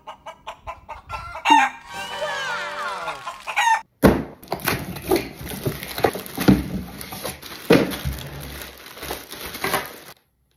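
Electronic robot chicken toy clucking in a quick regular run, then a long crow with sliding pitch. After about 4 s, several seconds of crackling and rustling, with more clucking mixed in.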